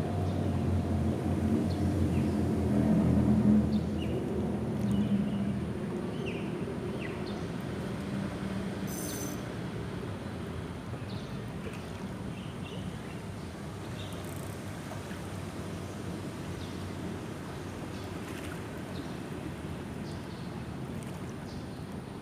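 Low rumble of vehicles crossing the road bridge overhead. It swells to its loudest a few seconds in, then fades to a quieter, steady rumble, with faint short chirps scattered through it.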